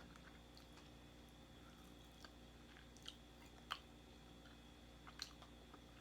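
Faint chewing of a mouthful of fried chicken close to the microphone: a handful of separate wet mouth clicks over a low hum, the loudest a little before the four-second mark.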